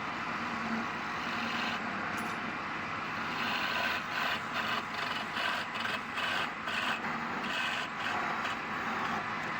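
A wood lathe turning a palm-wood bowl, with a tool working the spinning wood and making a steady hiss. About a third of the way in, the hiss starts to swell and fade roughly twice a second.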